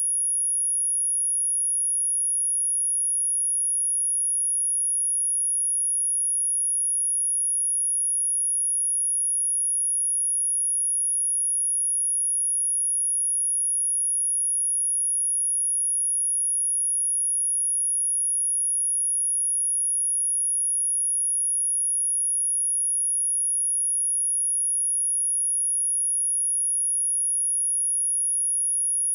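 A steady, unbroken pure sine-wave test tone at 10435 Hz, a single high-pitched whistle held at constant loudness.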